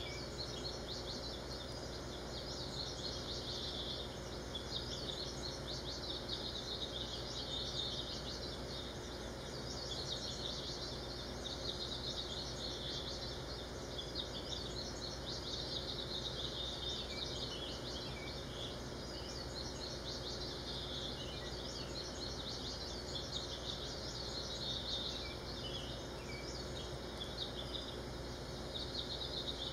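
Many birds chirping and twittering in a dense, continuous chorus, with a few short falling whistles, over a low steady hum.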